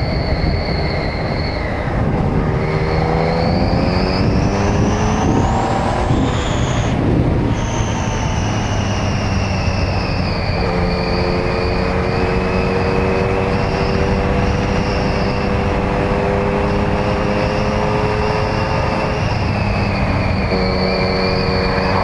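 Yamaha MT-09's inline-three engine pulling the motorcycle along at road speed, under a steady rush of wind and road noise. Its pitch climbs for a few seconds, drops about seven seconds in, then holds fairly level at a steady cruise.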